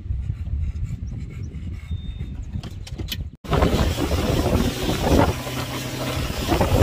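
A low rumble of wind on the microphone, then after a sudden cut a boat's outboard motor running at speed, with heavy wind buffeting on the microphone and water rushing in the wake.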